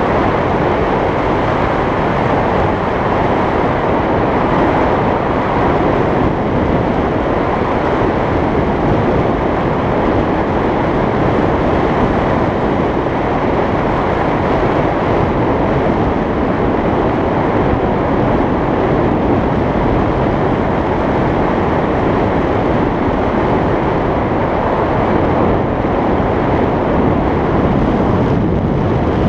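Loud, steady wind noise on an action camera's microphone from the airflow of a tandem paraglider flight.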